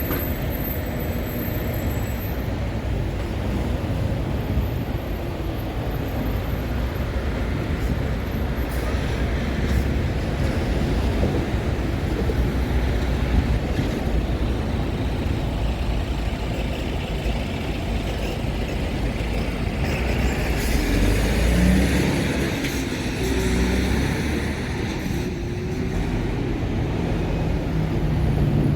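Train rolling past with a steady, heavy rumble that swells a little about two-thirds of the way through.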